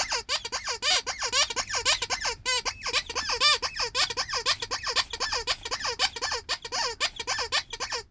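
Rubber bunny squeaky toy squeezed again and again: a rapid run of squeaks, several a second, each sliding up and down in pitch, with a brief pause about two and a half seconds in.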